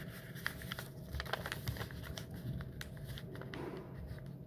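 A strip of paper being folded lengthwise and creased by hand on a table: light crinkling and rustling with many small crackles.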